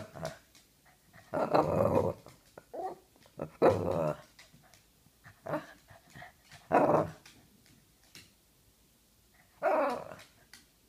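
Boston terrier making short growly barks and grumbles, several separate outbursts a few seconds apart: demand barking for the ball to be thrown.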